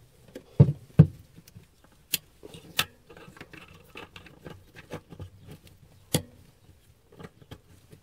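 Plastic wiring-harness connectors and loose wires being handled and plugged in. Scattered sharp clicks and knocks, the strongest about half a second, a second, two seconds and six seconds in, with light rustling and scraping between.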